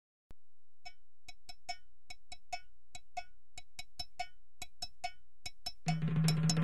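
A series of sharp, irregularly spaced clicks, about three a second, each with a short high ring. Music with a low bass note comes in near the end.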